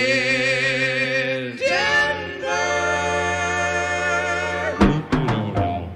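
Live rock-band recording: voices hold long sung notes with vibrato in harmony over sustained band chords, with a few drum hits about five seconds in.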